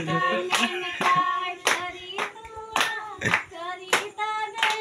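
A group of voices singing together, with rhythmic hand-clapping at about two claps a second.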